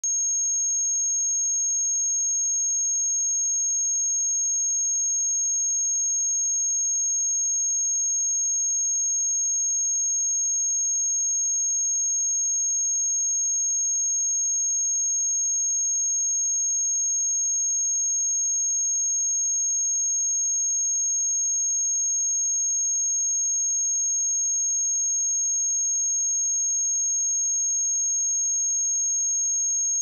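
A pure 6513 Hz sine-wave test tone, a single high-pitched steady whistle held at constant level.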